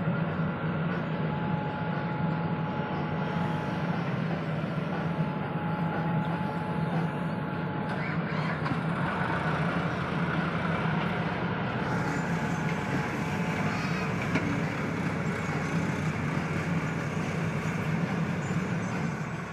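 JCB backhoe loader's diesel engine running steadily under load as it digs and dumps soil, with a tractor's engine running alongside. A thin steady whine comes and goes three times over the engine noise.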